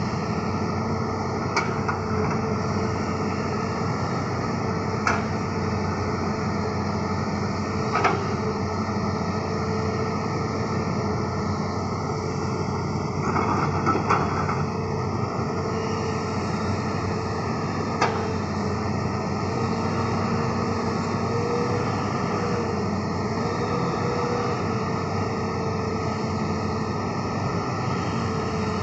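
Hitachi Zaxis 200 hydraulic excavator's diesel engine running steadily as the machine digs, with a few sharp clanks from the bucket and arm and a rougher stretch near the middle.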